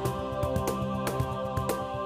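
Background music: held notes over a steady, quick beat of about four strokes a second.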